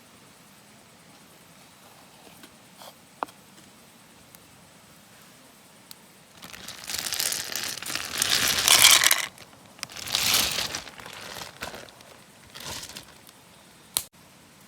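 Crinkling, rustling handling noise in several bursts starting about halfway through, loudest in the middle, followed by a single sharp click near the end.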